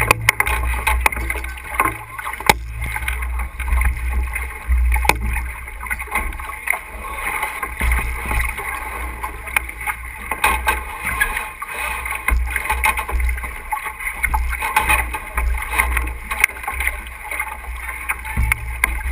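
Wind buffeting the microphone over the steady rush of water along a sailboat's hull, with scattered knocks and clicks.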